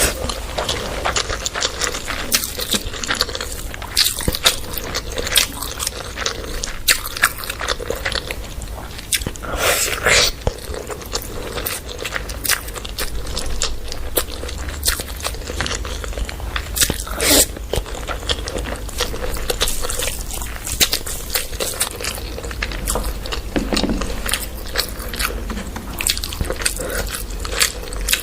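Close-miked eating sounds from chow mein and a chicken leg piece: irregular biting, chewing and crunching clicks, wet mouth noises, over a steady low hum.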